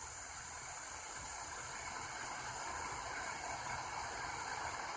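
XHData D-808 portable radio on the 126.500 MHz air band, giving a faint steady hiss of static with no transmission coming through.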